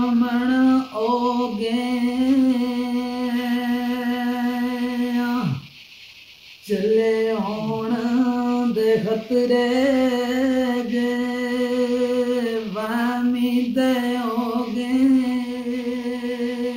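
A man singing a Gojri mahiya folk song unaccompanied, holding long high notes with small wavers in pitch. He breaks off once for breath about five and a half seconds in, then sings on.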